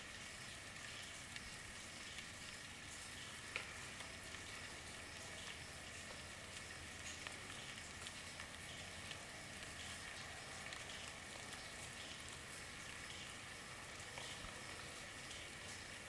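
Steady rainfall: an even, soft hiss of rain with scattered drops ticking.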